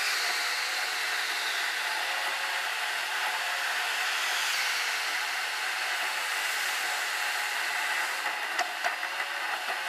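Steady road and tyre noise of a car driving at expressway speed through a road tunnel, with a few light knocks near the end.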